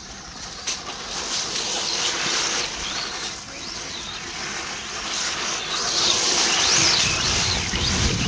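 A 1/14-scale electric RC rally car driving on loose ground: a high motor whine that rises and falls with the throttle over the hiss of the tyres. It gets louder and fuller in the last couple of seconds as the car comes close.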